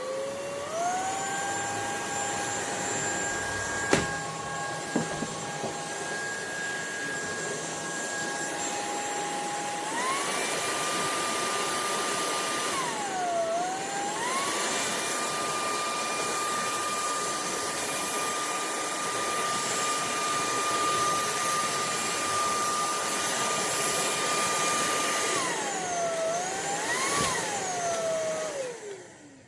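UNINELL UV3 cordless stick vacuum running with a steady motor whine over the rush of its airflow. It spins up at the start and steps up to a higher speed about ten seconds in. It dips briefly and recovers around thirteen seconds, then winds down near the end. There is a single sharp click about four seconds in.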